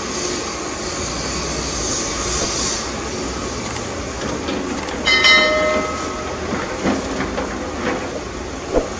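Heavy earthmoving machinery running with a steady engine noise and metal clatter. About five seconds in there is a brief high-pitched tone, followed by a few sharp knocks, the loudest near the end.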